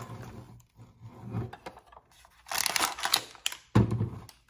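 Hard plastic clicks and knocks from handling a plastic toy doll playset and its small compartments, then a rustle of plastic packaging and a single sharp thud a little before the end.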